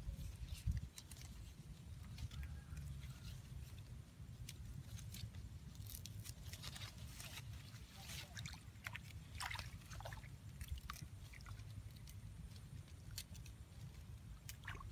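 Leaves and twigs rustling and crackling as hands work among a leafy bush's branches, in scattered short clicks that are busiest in the middle, over a low steady rumble.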